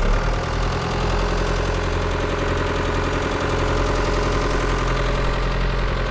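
A vehicle engine running steadily at a low, even pitch, growing louder right at the start and then holding steady.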